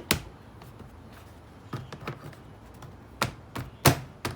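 A series of sharp taps and knocks at irregular spacing, the loudest a little under four seconds in: hard parts being handled and fitted back on the generator after its oil fill.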